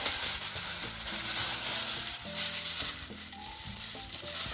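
Background music: a simple melody of short held notes that change every half second or so, over a steady high hiss.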